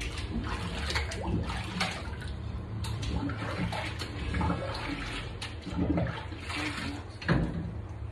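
Water splashing and sloshing in a stainless-steel three-compartment bar sink as glassware is washed and rinsed by hand, with irregular knocks and clinks against the steel and glass.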